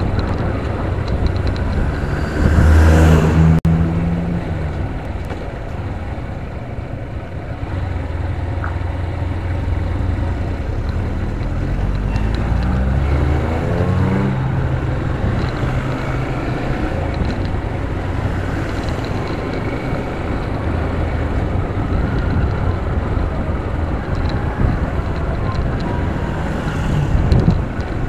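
Motorcycle engine running under way with road and wind noise. It swells louder about three seconds in, and the engine note rises as it accelerates a little past halfway.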